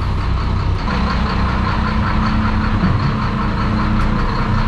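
Charter boat's engine running steadily at low revs, a low even hum under a haze of wind and sea noise.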